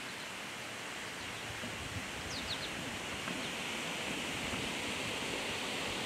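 Steady, even outdoor hiss among trees, growing slightly louder, with a few short, faint high chirps about two and a half seconds in.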